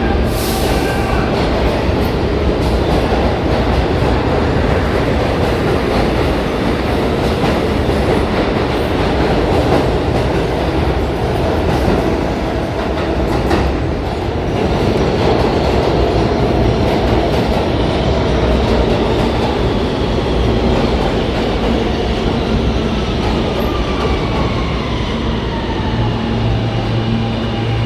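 New York City subway train running loudly through the station, its wheels clacking over the rail joints. Near the end a falling electric whine comes in.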